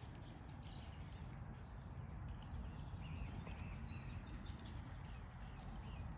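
Quiet pasture ambience: a steady low rumble under a few faint, scattered bird chirps.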